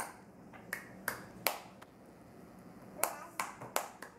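Hands clapping: a few separate claps, then a quick run of four or five claps about three seconds in.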